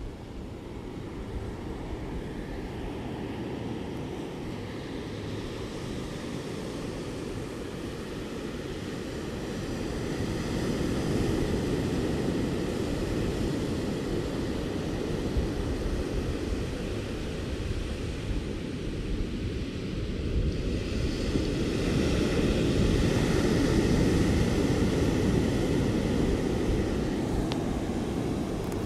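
Ocean waves washing on a shore, a steady deep rush of surf that swells louder about a third of the way in and again near the end.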